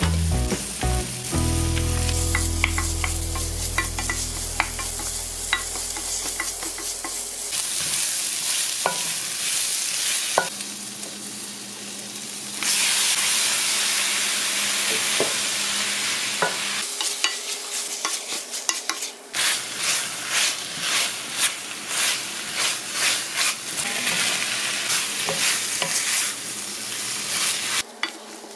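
Chili oil sizzling in a hot stainless steel frying pan as zucchini and onion, then squid and shrimp, are stir-fried with a wooden spatula. The sizzle gets much louder a little before halfway, once the squid and shrimp are in. Near the end come steady scraping stirring strokes, about two a second.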